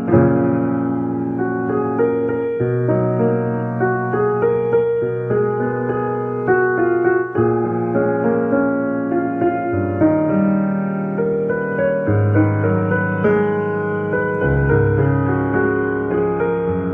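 Background instrumental music, with held notes that change every second or so.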